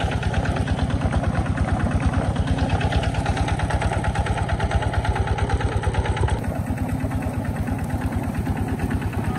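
Engine of a pond-draining water pump running steadily with an even, regular beat.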